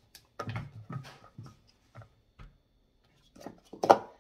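Plastic sport-stacking cups being stacked up at speed, clacking against each other and knocking on the rubber mat in a quick, irregular series of knocks, loudest about four seconds in.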